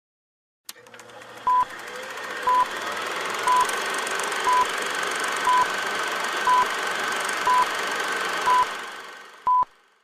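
Quiz countdown timer: a short electronic beep once a second, nine in all, the last one a little longer. Under the beeps runs a steady background drone that swells in after a soft click and fades out near the end.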